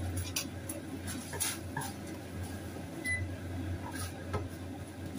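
Wooden spatula stirring in a frying pan on the stove, with a few light scrapes and taps, over a steady low hum.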